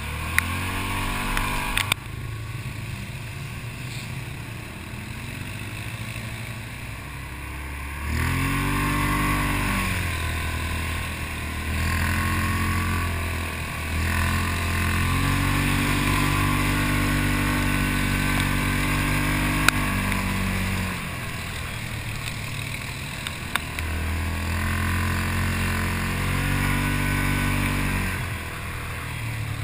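ATV (quad) engine on a trail ride, climbing in pitch and holding each time the throttle opens, then dropping back to a lower pull in between, several times over. There are a few sharp knocks near the start.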